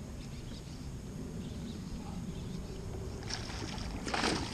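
A hooked fish splashing at the surface beside a small boat, with two short splashes, the louder one near the end. Under it runs a steady low rumble of wind and water against the hull.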